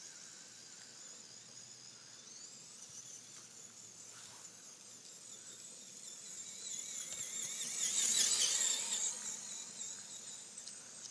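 Axial SCX10 Trail Honcho RC crawler's electric motor and gear drive whining as it drives, the high whine wavering in pitch with the throttle and growing loudest about eight seconds in.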